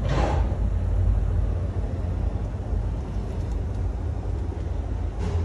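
Mack Metroliner truck's diesel engine idling, heard from inside the cab: a steady low rumble. A short burst of hiss comes right at the start.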